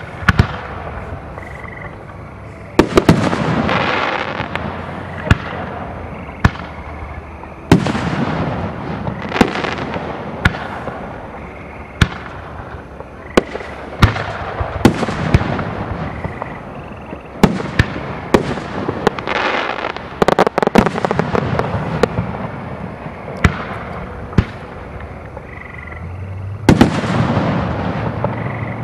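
Professional aerial fireworks display: shells bursting with a sharp bang every second or two. Several heavier bursts, near 3 s, 8 s, 20 s and 27 s, trail off in a couple of seconds of rushing hiss.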